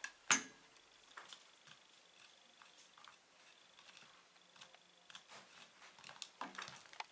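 Pigeon pecking at a crumbly mineral pick stone: irregular faint clicks and scrapes of the beak on the block, with one sharper click a fraction of a second in.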